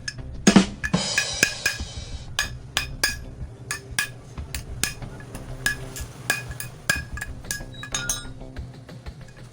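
Sharp metal clinks and taps of tools working on a bicycle's squirt-type bottom bracket while its bearing is taken out, coming irregularly two or three times a second. A heavier knock comes about half a second in, followed by a short rasping scrape.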